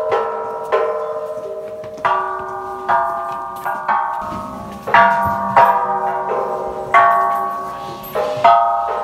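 Waniguchi temple gongs struck by worshippers swinging the hanging ropes: about ten ringing metallic strikes at uneven intervals, of different pitches, each left to ring out and overlapping the next.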